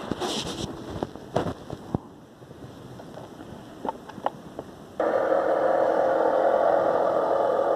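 A few small splashes and clicks of water, then about five seconds in the 3D-printed RC jetboat's brushless electric motor (2250kv, on a 3S battery) starts suddenly and runs at a steady hum.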